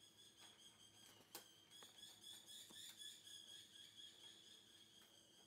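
Near silence: a few faint, short clicks of a screwdriver and hands working screws into a heater's sheet-metal cover, over a faint steady high-pitched whine in the background.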